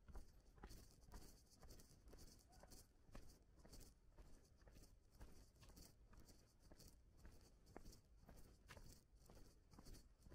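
Faint footsteps of a person walking at an easy pace, about one and a half steps a second.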